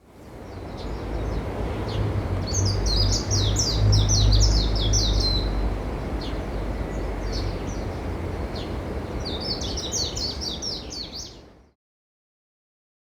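Small birds chirping in two quick runs of rapid high notes over a steady outdoor noise with a strong low rumble, which fades in and cuts off suddenly near the end.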